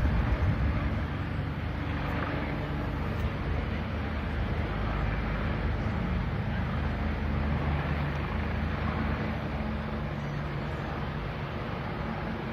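Steady low rumble with wind noise buffeting the microphone.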